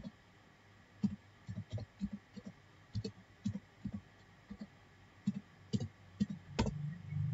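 Computer keyboard being typed on, a string of irregular key clicks as a web address is entered, with the loudest keystroke near the end.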